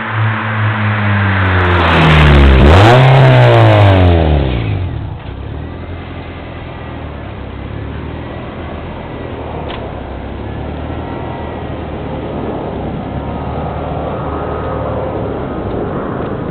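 Honda Civic with a D15B SOHC VTEC four-cylinder and a free-flowing 2.25-inch exhaust with Blox muffler, silencer removed, revving hard as it passes close by. The note is loudest between about two and four seconds in, its pitch swinging up and then dropping, then it falls to a steady, lower engine note further off.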